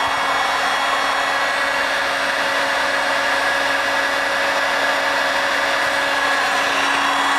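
Corded electric heat gun running steadily: an even blowing whir with a constant hum underneath.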